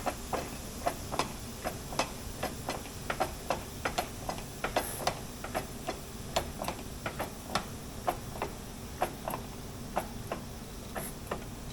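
A run of light, sharp taps or clicks at uneven spacing, about two to three a second, over a low steady hum.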